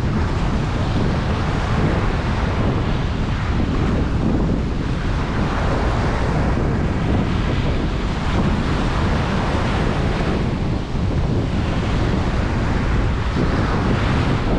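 Ocean waves washing onto a beach, with a steady surf roar and slow swells of wash every few seconds, and heavy wind buffeting on the microphone underneath.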